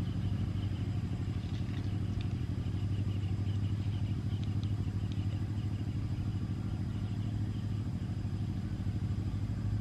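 An engine running steadily: a low, even hum with a fast flutter that does not change.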